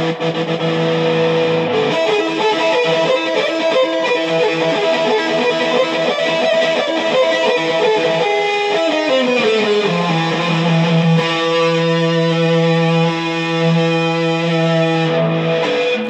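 Les Paul electric guitar playing a riff: quick picked notes, then a downward slide about nine seconds in, settling into a held, ringing chord that cuts off at the end.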